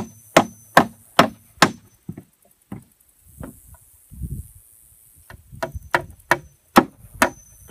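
Hammer striking the wooden 2x6 floor framing of a coop, sharp ringing blows about two and a half a second. A run of blows, a pause of about three seconds with a few lighter taps and a dull thud, then another steady run.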